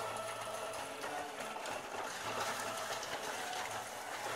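Hail pelting down hard in a heavy storm: a dense, steady rattle of countless small impacts.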